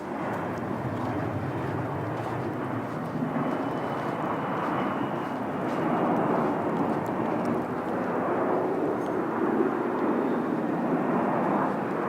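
Steady rushing noise of snowstorm wind outdoors, coming in suddenly and staying even throughout.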